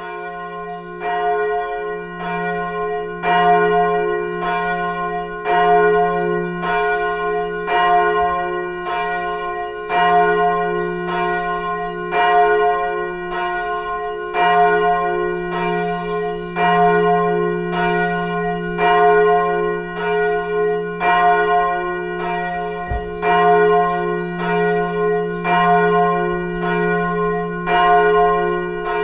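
Church bell ringing, struck steadily about once a second with every other stroke a little louder. A low hum tone rings on continuously beneath the strokes.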